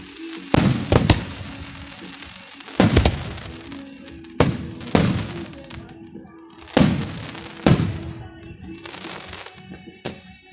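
Aerial firework shells bursting overhead: a series of loud booms, each trailing off into crackling, with steady music playing underneath.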